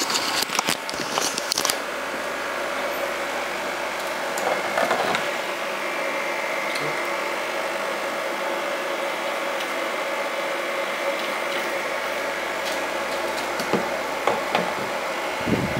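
Clicks and knocks of a 3D-printed plastic prosthetic hand being handled and turned over, densest in the first two seconds with a few more later. Underneath, a steady hum with a faint high tone.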